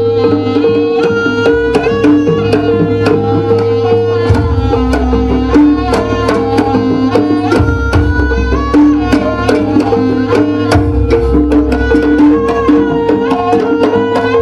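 Live Javanese jaranan ensemble music: rapid drum strokes over low gong tones that change every couple of seconds, with a steady held note and a melody line that bends up and down in pitch.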